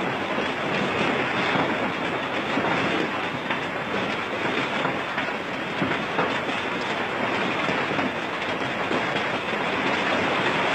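Heavy hailstorm: hailstones pelting down in a dense, steady clatter of countless small impacts on the ground and trees.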